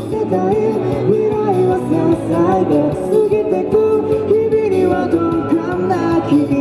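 Male vocals sung into a handheld microphone over amplified backing music: a pop song with a held, gliding melody.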